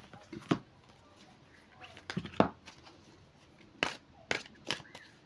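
Tarot cards being drawn and laid down on a table: a few scattered soft taps and clicks.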